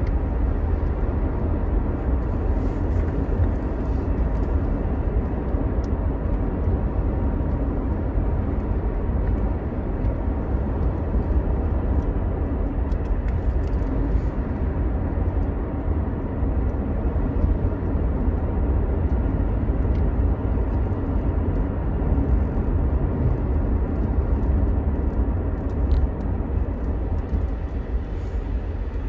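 Steady low rumble of a car's engine and road noise heard from inside the cabin while the car is driving.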